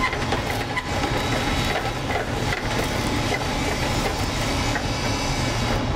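Pan sauce of shallots, cognac, honey and beef stock sizzling and bubbling as it reduces and thickens in a sauté pan over a gas burner, over the steady hum of the kitchen's exhaust hood.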